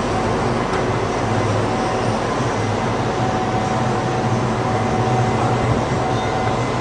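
Steady drone of a ship's cargo crane and machinery lowering a slung load into the hold: a low hum with a faint steady whine above it.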